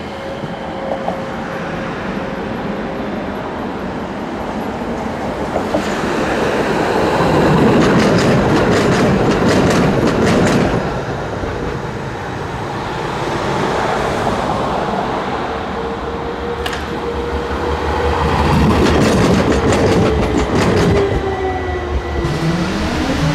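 Trams running on city track, their wheels clattering over rail joints in two louder passages, about eight and twenty seconds in. Near the end the whine of an electric tram drive glides up and down in pitch.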